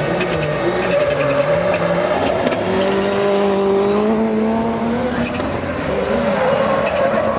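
Rally cars' engines at race speed, several at once, revving and climbing in pitch through a corner, with sharp pops during the first couple of seconds.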